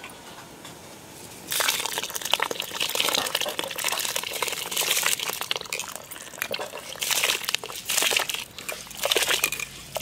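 Soaked rice and its soaking water poured from a steel bowl into a large metal pot of water close to the boil: splashing water with many small ticks from the grains. It starts about a second and a half in and comes in several pours with short breaks.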